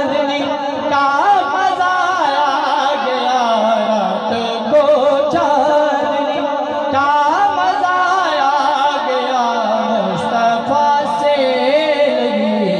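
A man singing a devotional naat into a microphone and out through a loudspeaker, in long wavering melodic lines that hold on stretched vowels.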